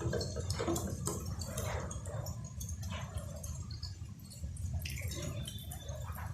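Strong gusting wind, heard as a steady low rumble on the microphone, with scattered clicks and rattles on top.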